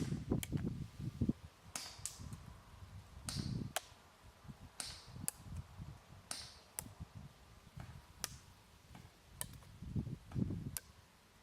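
Tokyo Marui gas airsoft pistols fired one shot at a time, about fifteen sharp pops at uneven intervals. Several shots are followed by a brief hiss of escaping gas.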